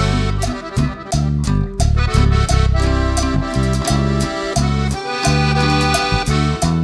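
Background music led by an accordion, with a steady beat.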